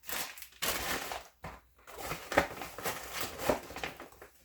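Plastic or paper packaging being handled, crinkling and rustling unevenly with small sharp crackles.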